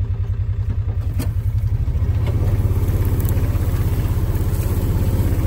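Vehicle engine idling with a steady, evenly pulsing low throb that grows louder about two seconds in.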